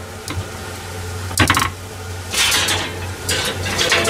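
Metal clanks and rattles of a toaster oven door being opened and its wire rack pulled out, with one sharp clack about a second and a half in and rattling scrapes after. A steady low hum runs underneath.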